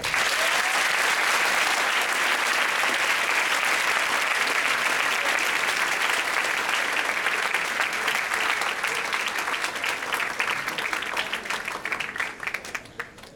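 Audience applauding, steady at first, then thinning to scattered single claps near the end and dying away.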